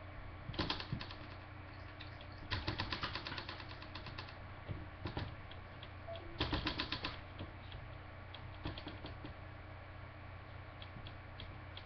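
Marker on a whiteboard: several quick runs of dry tapping and scratching as short strokes are drawn, over a steady low hum.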